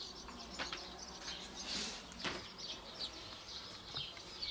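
Small songbirds chirping in quick, repeated high calls, with a couple of soft knocks.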